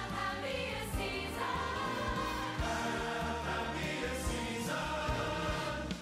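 Choir singing Christmas music with instrumental accompaniment, sustained notes over a steady bass line.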